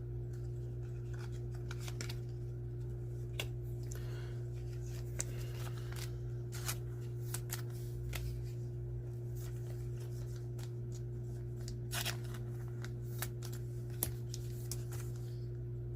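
Baseball trading cards being handled and flicked through: scattered soft clicks and rustles of card stock over a steady low hum.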